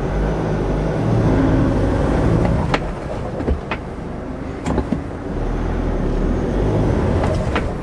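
Citroën-based 4x4 camper van's diesel engine revving under load in two long swells as it tries to pull up a wet, grassy slope in front-wheel drive only; the front wheels are slipping and losing grip.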